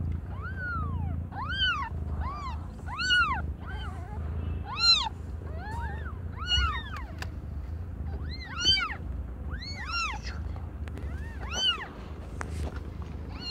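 Newborn kittens mewing: a quick series of short, high-pitched cries, each rising and falling in pitch, coming about one or two a second, some overlapping at different pitches.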